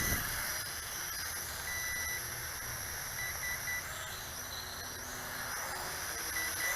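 XK X250 quadcopter's motors and propellers whirring at a distance in flight, a steady thin high-pitched hiss and hum. A faint high tone cuts in and out a few times.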